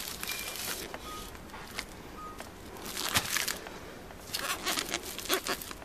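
Crinkling and rustling of a foil-wrapped firecracker pack being handled, in short irregular bursts.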